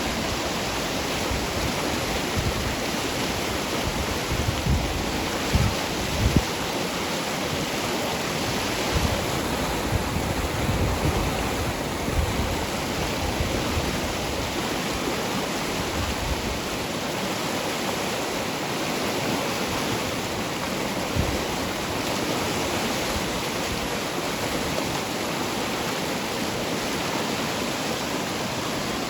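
Steady rush of flowing water from a stream or waterfall, an even hiss spread across high and low pitches. A few brief low thumps in the first half, and one later, break through the rush.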